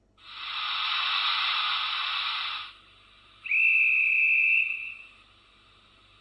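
Sound decoder of a Roco TT-scale BR 02 steam locomotive model playing a hiss of steam for about two and a half seconds, then one steady steam whistle blast of about a second and a half, through the model's small speaker.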